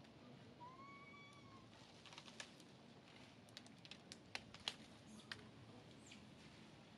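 Faint background with a short, high, arching animal call about a second in, then a scatter of sharp, irregular clicks through the middle.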